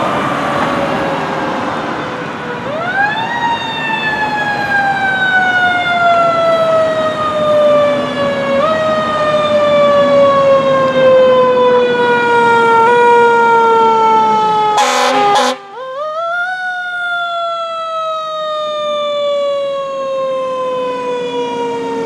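Fire engine siren, the pitch rising quickly and then falling slowly, pushed back up several times. Two short horn blasts come about two-thirds of the way through.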